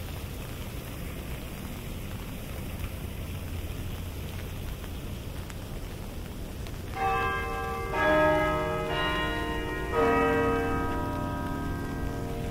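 Steady rain noise, then about seven seconds in the Baird Carillon's bells in Burton Memorial Tower begin to play. Several chords are struck about a second apart, each ringing on over the rain.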